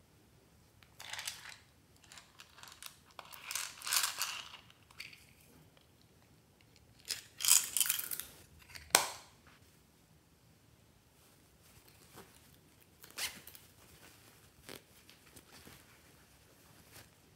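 Hands handling small plastic craft items and their containers: several short bursts of rustling and rattling as pieces are tipped out, with a sharp click about nine seconds in.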